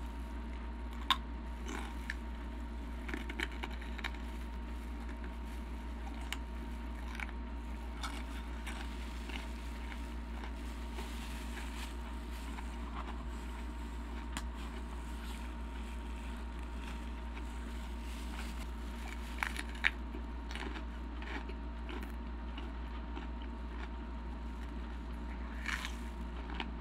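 Close-miked biting and chewing of cream-cheese-stuffed jalapeño halves packed with rolled Takis tortilla chips: sparse sharp crunches, the loudest about a second in and again around twenty seconds in, over a steady low hum.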